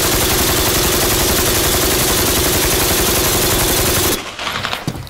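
RPK light machine gun firing one long full-auto burst at about eleven rounds a second, the last of a drum, stopping abruptly about four seconds in. A few faint clicks follow. The gun is hot and smoking from sustained drum-after-drum fire.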